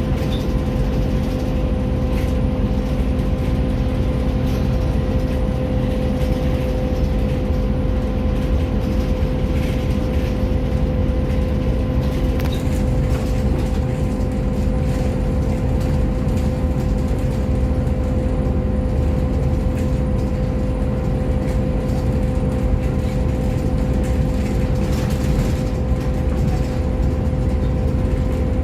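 Volvo B7TL double-decker bus heard from inside, its six-cylinder diesel engine and drivetrain running with a steady hum and an unchanging whine over a low rumble, with a few light rattles.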